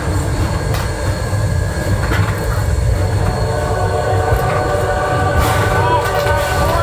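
Steam-hauled passenger train rolling along the track: a steady low rumble from the cars, with thin wheel squeal tones coming in from about halfway.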